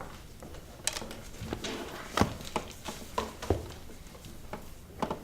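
Scattered light knocks and clicks at irregular intervals over low room tone, the sharpest about two seconds in.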